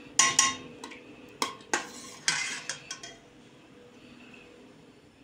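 Metal spoon clinking and scraping against a stainless steel pot while stirring thick tomato sauce: several sharp clinks and a short scrape in the first three seconds.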